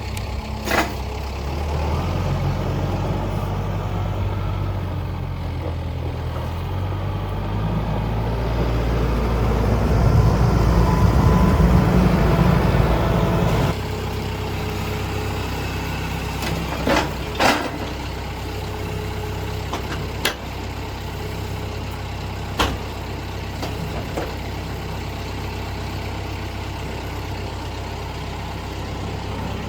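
A heavy engine running steadily. It works harder and louder for several seconds in the middle, then drops back suddenly about fourteen seconds in. A few sharp knocks sound over it.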